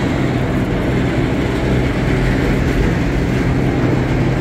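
Steady running noise of a moving vehicle: an even rumble with a constant low engine hum.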